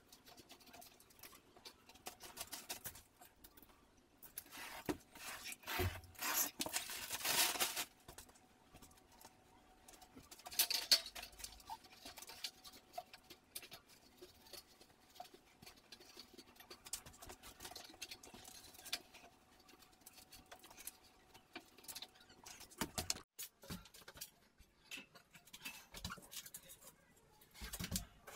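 Hand work on drywall: irregular scratching, scraping and light tapping, with longer, louder scraping passes about six to eight seconds in and again around eleven seconds.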